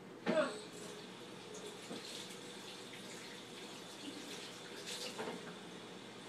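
Kitchen sink tap running faintly while hands are rinsed under it. A brief louder sound with a falling pitch comes about a third of a second in.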